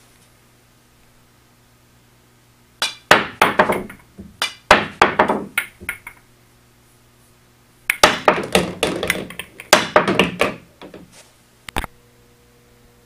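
Pool balls clacking against each other and against the wooden props and bar they are balanced on, after the cue strikes. The clacks come in two bursts, about 3 seconds in and again about 8 seconds in, with one more click near the end.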